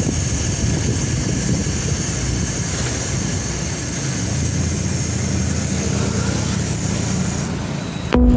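Steady wind rumble on the microphone with a high hiss of rushing air and road noise, as from a camera on a moving bicycle. It changes abruptly just after 8 seconds in.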